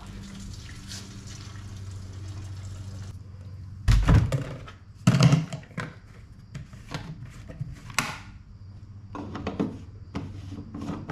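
Gasoline pouring from a plastic gas can into a riding mower's plastic fuel tank, stopping about three seconds in. Two loud thunks follow about a second apart, then a sharp click and light clicking near the end as the tank cap is handled.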